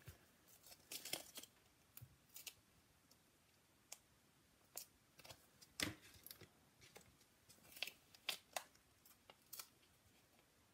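Faint, scattered rustles and light clicks of paper and card being handled, as small foam adhesive dimensionals are peeled from their backing sheet.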